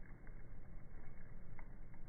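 Fire burning in a fireplace: a steady low rumble with a few sharp crackles and pops, one plainer than the rest about one and a half seconds in.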